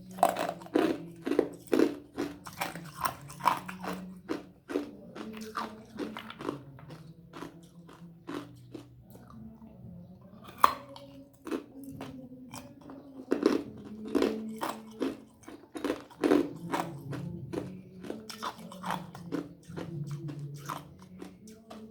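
Ice being bitten and crunched between the teeth: a long run of crisp, sharp crunches, about two to three a second, thinning out for a few seconds in the middle.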